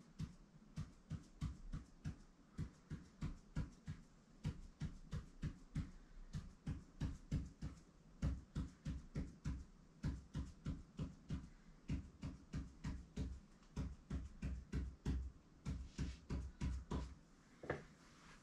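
Ink pen on paper, drawing short vertical tally marks in quick succession at about three strokes a second; each stroke is a short tap and scratch with a soft thud from the board beneath.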